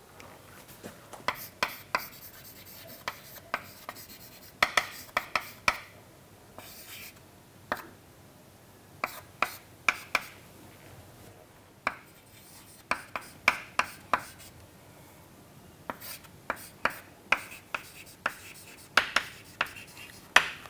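Chalk writing on a chalkboard: irregular sharp taps and short scratches as letters and symbols are stroked out, in clusters with brief pauses between them.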